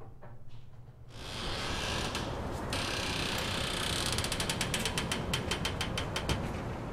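A steady hiss of street noise swells in as a building's glass entrance door opens. Over the last few seconds comes a fast, even run of ratchet-like mechanical clicks, about eight to ten a second.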